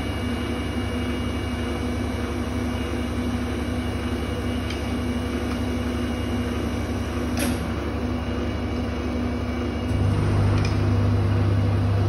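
Steady electrical hum of an arc melting furnace's power supply and equipment, growing louder and deeper about ten seconds in as the arc burns over the metal again. A sharp click about seven and a half seconds in.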